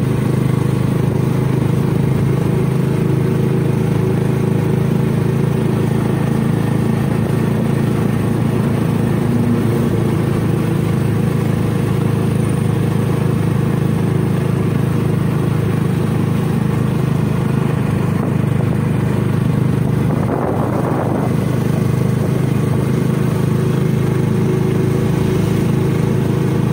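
Engine of a moving road vehicle heard from on board: a steady low drone that holds level throughout, with a brief louder swell about twenty seconds in.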